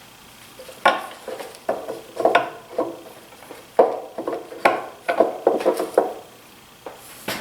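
Irregular clinks and knocks of metal parts and tools being handled during planer reassembly, about a dozen sharp hits with a short ring after each.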